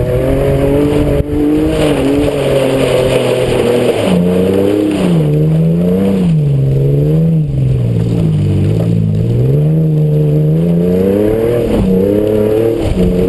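Exhaust of a 2004 Suzuki Grand Vitara's 2.5-litre V6 through a Magnaflow performance muffler, running with the revs rising and falling over several seconds. There is a sudden jump up in pitch about four seconds in.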